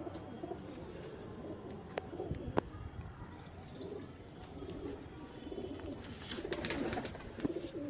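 Domestic pigeons cooing in low, repeated murmurs, with two sharp clicks about two seconds in and a burst of rustling near the end.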